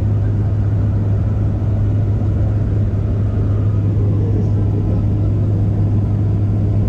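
Jump plane's engines droning steadily, heard inside the cabin in flight: a loud, constant noise with a strong low hum underneath.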